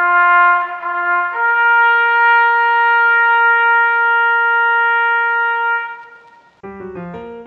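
Soundtrack music: a single instrument plays two short notes, then one long, higher note held for about four and a half seconds that fades out. Busier piano-like music starts near the end.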